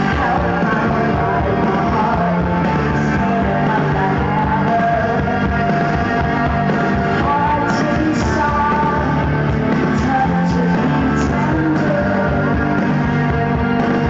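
Live rock band playing a song through the PA, with guitar, keyboards and drums under a woman singing lead, heard loud from within the audience.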